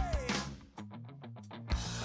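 Background rock music with guitar and drums. A little under a second in, the music briefly drops to a muffled, low passage, then the full band comes back in near the end.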